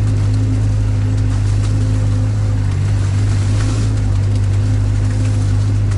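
Sherp all-terrain vehicle's diesel engine running at a steady low drone, heard from inside the cab while the vehicle wades through shallow water.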